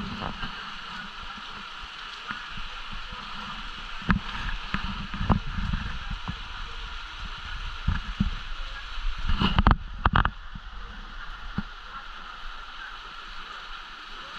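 Hurricane wind and rain, a steady rushing noise with gusts buffeting the microphone in low rumbling surges, and a few sharp knocks about ten seconds in.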